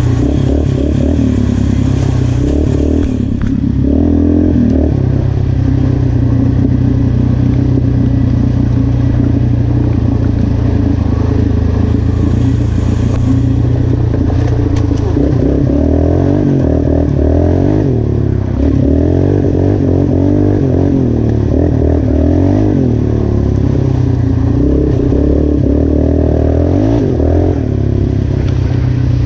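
Yamaha Raptor 350 ATV's single-cylinder four-stroke engine running under way, revs rising and falling with the throttle, most noticeably in the second half. It is running on a freshly cleaned carburetor rejetted with a 150 main jet.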